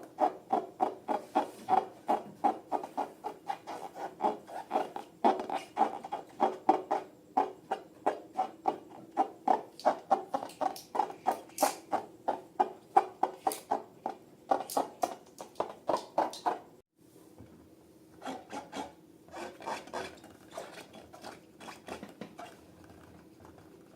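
Slime being kneaded and squeezed by hand, making short rubbing, squishing strokes at about two or three a second. About 17 seconds in the sound cuts off suddenly, and quieter, irregular handling follows.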